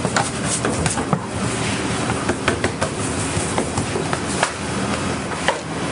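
Steady kitchen background noise with a low hum. Over it come frequent, irregular sharp slaps as pizza dough is slammed and worked on a steel counter.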